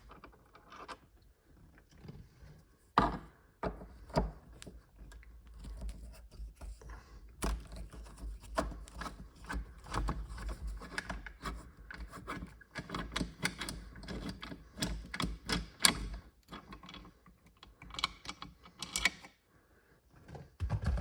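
Hand-work noises: a Torx screwdriver undoing screws and plastic car interior trim being handled, a run of irregular clicks, taps and rubbing with a few louder knocks.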